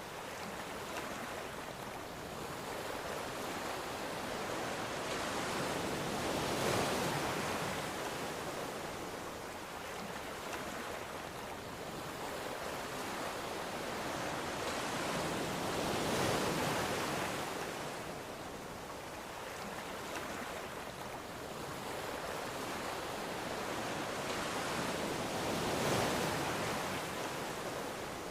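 Ocean waves breaking and washing on a shore, a steady surf hiss that swells three times, about every nine or ten seconds.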